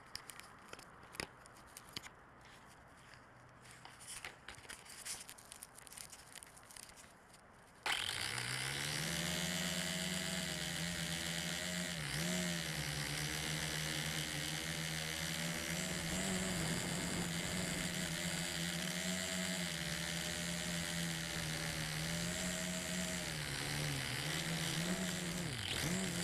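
LaTrax Alias quadcopter's motors and propellers spin up suddenly about eight seconds in and run with a loud, steady buzzing hum whose pitch wavers up and down with the throttle, heard close up from a camera on the drone. Before that there are only a few light clicks of handling.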